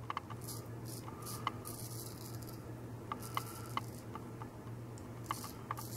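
A replaceable-blade straight razor fitted with a new Feather Professional Super blade scraping through lathered beard stubble in a series of short strokes with small crisp clicks. The blade is cutting easily. A faint steady low hum runs underneath.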